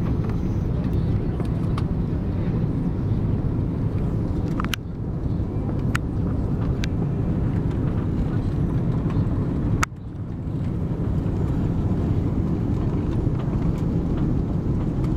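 Steady rumble of a jet airliner's engines and rushing air heard inside the cabin on final approach, coming down onto the runway, with a brief drop in level about ten seconds in.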